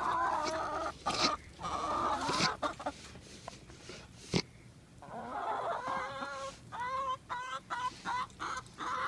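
Chickens clucking, with a quick run of short repeated calls in the second half.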